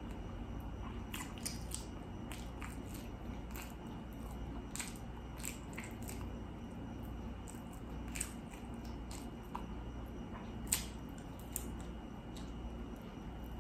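Close-miked chewing and mouth sounds of a person eating: irregular soft wet clicks and smacks, over a low steady hum.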